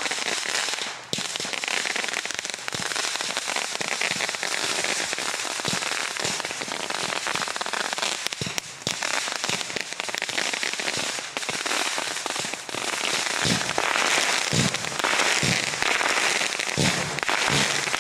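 Fireworks and firecrackers going off in a rapid, continuous crackling barrage, with several deeper bangs in the last few seconds.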